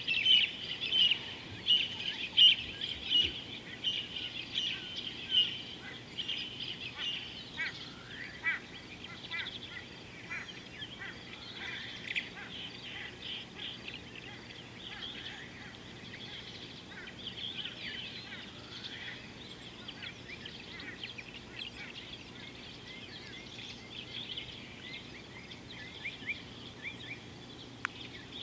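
Birds calling in a chorus: rapid repeated chirps, loudest in the first six seconds, then scattered chirps and short sliding calls over a faint steady background.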